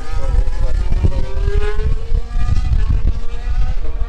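Formula 1 car's turbocharged V6 hybrid engine running hard, its pitch rising through the first half as the car accelerates, over a heavy low rumble.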